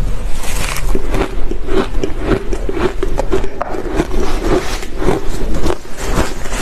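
Close-miked crunching and chewing of a mouthful of shaved ice: a dense, irregular run of crackles and crunches.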